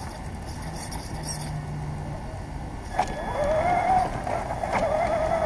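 Electric RC car motor whining as it drives off, its pitch wavering up and down with the throttle. A sharp click comes just before the whine starts, about three seconds in.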